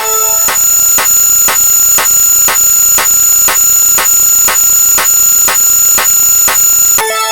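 Synthetic alarm-like electronic sound effect: a steady high-pitched tone over hiss, pulsed by sharp clicks about twice a second. A lower, chime-like chord of tones sounds briefly at the start and comes back just before the end.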